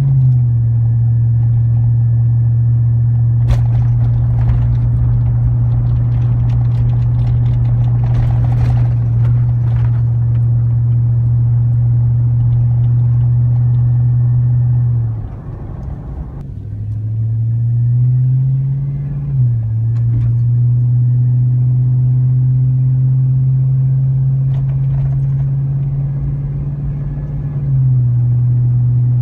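Exhaust drone of a 1999 Chevrolet Silverado's 5.3L LM7 V8 through a Cherry Bomb muffler, heard while driving. The engine holds a steady low cruising note, eases off about halfway, climbs in pitch as the truck accelerates, drops sharply with an upshift, then settles back into a steady cruise.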